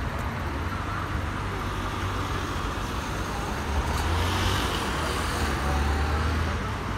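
Street traffic: car engines and tyres rumbling, louder for a couple of seconds about four seconds in as a car drives past.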